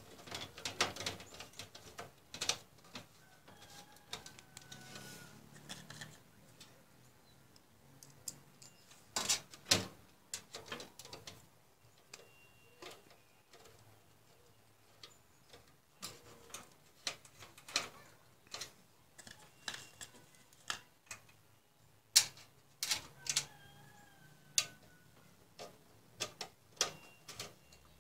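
Irregular clicks and knocks of hands handling cables and parts against the metal back of a desktop computer case, fitted with its power supply, with louder knocks a third of the way in and again about three quarters of the way through.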